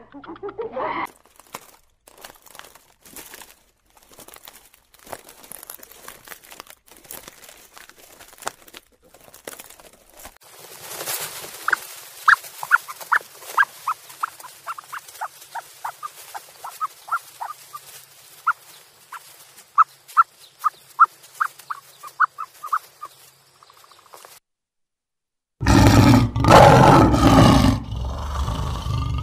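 A male lion roaring loudly near the end. Before that comes a run of short high chirps, about two or three a second, over faint clicks.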